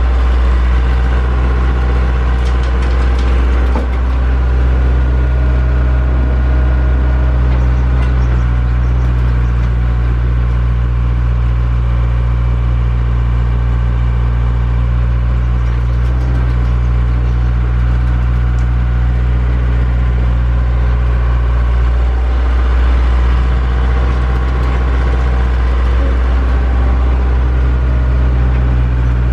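Diesel engine of heavy earthmoving equipment running steadily at an even speed, a deep, constant drone.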